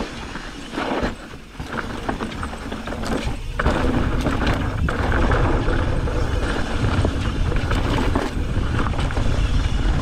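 Mountain bike descending a dry dirt trail at speed: wind rushing over the camera microphone with the tyres rolling and rattling over dirt and rocks. It gets louder about four seconds in.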